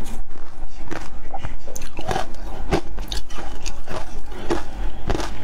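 Close-miked crunching and chewing of a mouthful of shaved ice, a dense, irregular run of crisp crunches.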